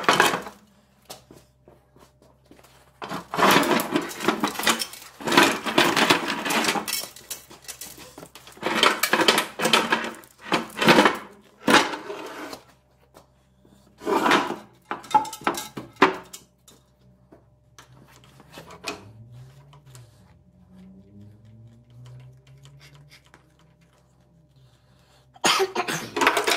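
Steel gearbox parts of a ZF 16S151 truck transmission clanking and rattling as they are handled during disassembly, in several bursts a few seconds long, over a faint steady low hum.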